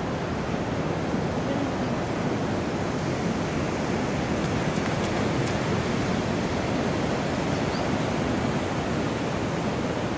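Steady rushing noise of wind and sea water washing at the shore, even in level throughout, with a few faint clicks about halfway through.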